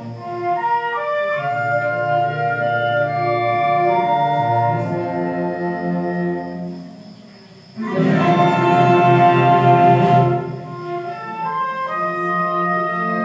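Solo clarinet with wind band accompaniment playing a classical piece, held sustained notes. After a brief hush the whole band comes in louder about eight seconds in for a couple of seconds, then softens again.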